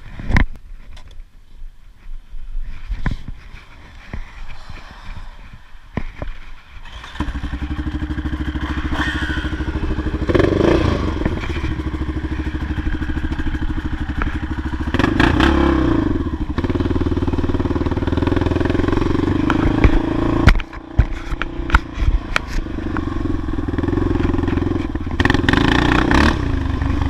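Scattered knocks and clatter, then the Yamaha Raptor 660 quad's single-cylinder four-stroke engine starts about seven seconds in. It runs steadily and is revved up several times as the quad moves off.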